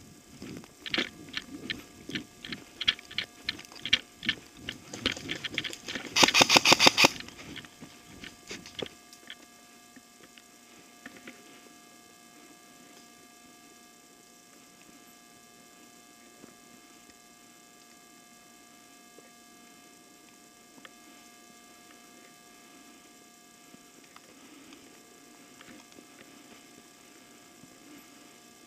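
Airsoft gun firing: a run of sharp clicks, then about six seconds in a short, loud rapid burst like full-auto fire, followed by a few weaker ticks. After that only a faint steady hum remains.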